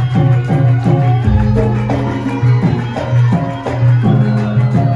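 Javanese gamelan accompanying a lengger dance: kendang hand-drum strokes that slide down in pitch, a few a second, over long sustained low gong tones.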